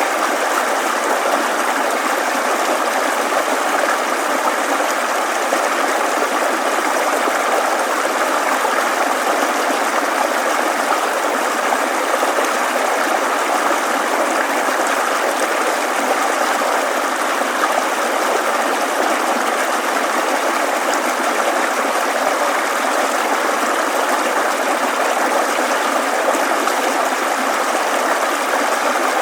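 Steady murmur of a shallow stream, water running continuously over stones.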